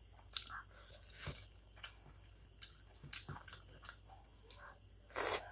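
Faint, close-up wet chewing and mouth smacks of someone eating rice and food by hand, in scattered short clicks. A louder, longer noisy smack or slurp comes just before the end.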